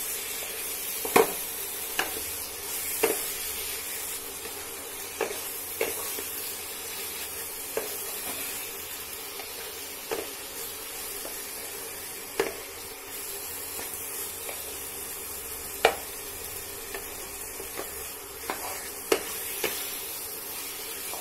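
Marinated mutton frying and sizzling in oil and onion masala in a kadai, stirred with a wooden spatula that knocks and scrapes against the pan at irregular moments. This is the kosha stage, with the meat being fried down in the spices.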